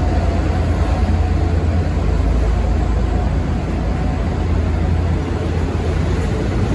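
V/Line N class diesel-hauled passenger train pulling out, a steady low rumble that holds at much the same level throughout.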